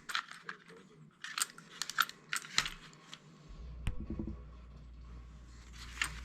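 Small sharp clicks and clacks of a plastic model locomotive being handled and turned over on a work surface, several in quick succession early on and one more a little later. A low steady hum comes in about halfway through.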